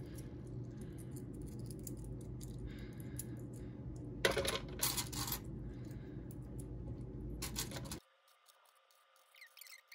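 Dimes clicking and clinking as they are dropped and stacked into the slots of a plastic coin-counting tray, with a few louder clatters about four to five seconds in and again just before eight seconds. A steady low background hum cuts out suddenly about eight seconds in.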